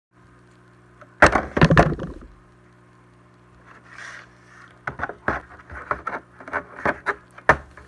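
Handling noise from a boxed toy figure in a clear plastic window package: a loud clatter about a second in, then a run of sharp knocks and plastic clicks as the box is moved about. A steady low hum lies underneath.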